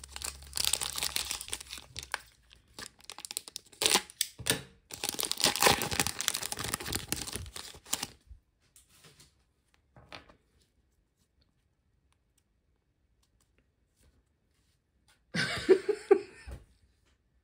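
A trading card pack's plastic wrapper crinkling and tearing as it is cut and pulled open, in crackly bursts over the first eight seconds or so. Then near silence, and a short loud burst of noise near the end.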